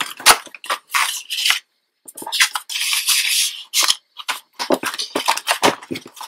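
Pages of a ring-bound cardboard-and-paper mini album being turned and handled: paper rustling and sliding, with a string of light taps and knocks as the album is closed and set down.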